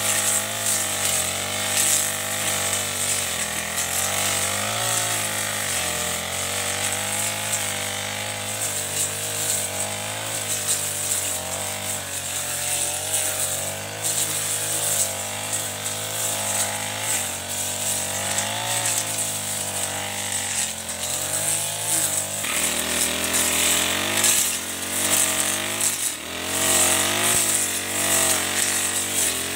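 Backpack four-stroke brush cutter with a Chinese-made Honda-type engine running fast while cutting tall grass and weeds. The engine note wavers up and down and shifts about three-quarters of the way through.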